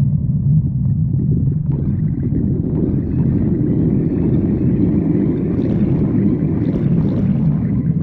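A person's stomach growling: a continuous low rumble that swells into a fuller gurgle about two seconds in.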